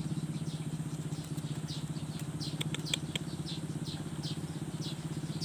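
A small engine idling steadily, a low chugging hum of about a dozen even beats a second.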